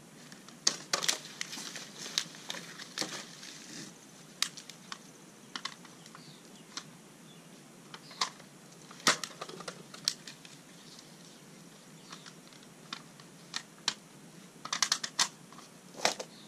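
Thin black plastic nursery cell packs crackling and clicking as annual transplants are squeezed out of them. The sharp clicks come irregularly, bunched about a second in, around the middle and near the end.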